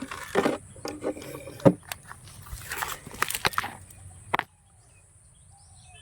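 Small electric motor of a toy RC dump truck whirring in short bursts, with irregular plastic clicks and knocks as it works over the track; it stops sharply about four and a half seconds in.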